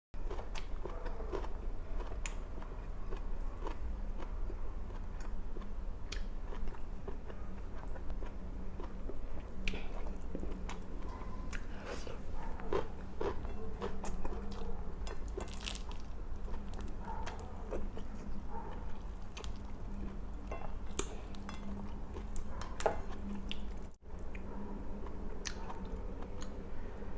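A person eating close to the microphone: chewing and biting food, with crisp crunches and small mouth clicks scattered throughout, over a steady low hum.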